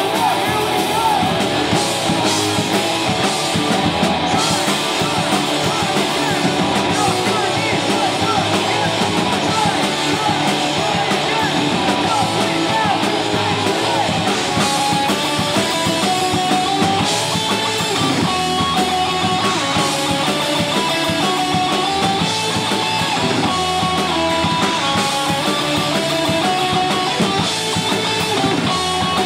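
Live punk rock band playing: electric guitars and drum kit. About halfway through, a stepping melody line of held notes comes in on top.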